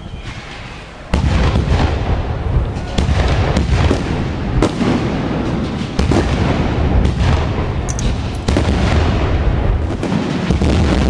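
Aerial fireworks display: about a second in, a dense barrage of shell bursts begins, with sharp bangs in quick succession over a continuous low rumble.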